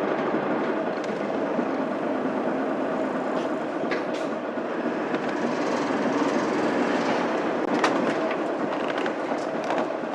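Interior sound of a Mitsubishi Fuso Aerostar city bus with a 6M70 diesel engine and five-speed manual gearbox, its engine and road noise running steadily as it moves off from a stop. A few sharp clicks and knocks sound around four seconds in, around eight seconds and near the end.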